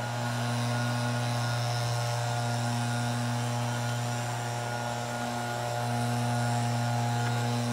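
A steady low hum with a few faint steady tones above it, running unchanged throughout.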